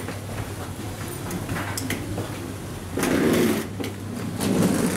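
Wheels of a rolling carry-on suitcase running along a jet bridge floor, with footsteps, over a steady low hum. There are two louder rattling stretches, about three seconds in and near the end.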